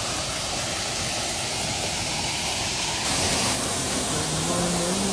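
Steady rushing hiss, with background music fading in near the end.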